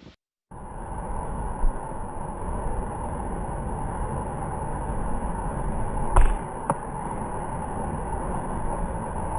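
Hurricane-force wind rushing steadily with a few sharp knocks and bangs, the loudest about six seconds in.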